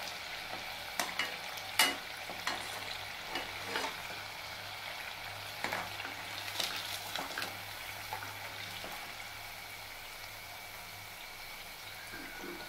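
Sweet pumpkin pakoras deep-frying in hot oil with a steady sizzle, while a wire skimmer knocks and scrapes against the kadhai several times in the first half as the browned fritters are stirred and lifted out. The sizzle then runs on quieter and even.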